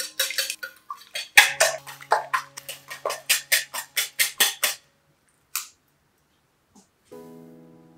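Wire whisk beating eggs in a ceramic bowl: a quick run of clicking strokes against the bowl, about four to five a second, stopping about five seconds in. Soft background music comes in near the end.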